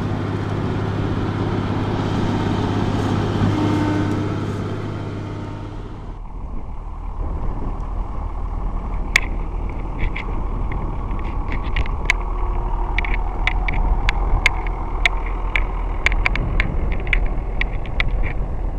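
Bizon BS Z110 combine harvester's diesel engine running steadily. About six seconds in, this gives way to a lower engine rumble with scattered sharp clicks and crackles.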